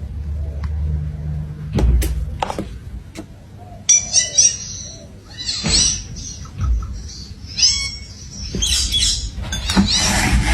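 Pet parrot calling in repeated short, high-pitched chirps and squawks, starting about four seconds in, with a few sharp knocks before.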